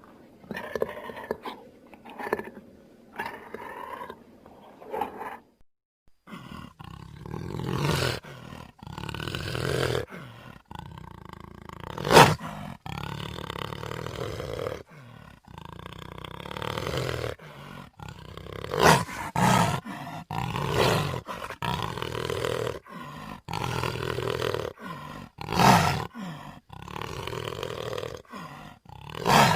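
Sound-effect roars and growls for the dinosaur Eoabelisaurus. It starts with a run of short, quieter growls and grunts. After a brief break, long, loud roars follow one after another, each with a sharp, loud peak.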